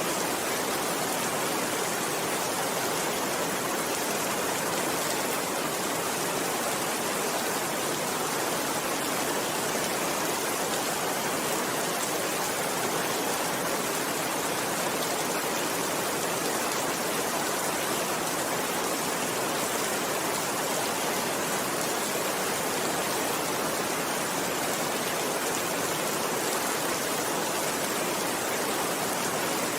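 Steady rainfall, an even hiss that holds at one level throughout, with no thunder.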